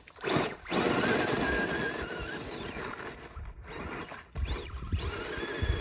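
A 3500kv brushless electric motor in an RC monster truck whining as it is driven, its pitch rising and falling several times as the throttle is worked.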